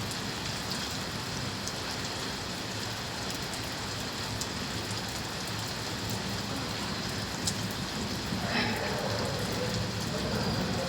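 Steady rain falling, a continuous hiss with scattered drop ticks. A brief louder sound comes in about eight and a half seconds in.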